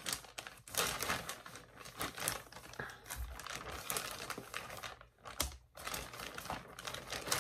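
Crinkly yarn packaging crackling irregularly as skeins of yarn are handled and taken out of it.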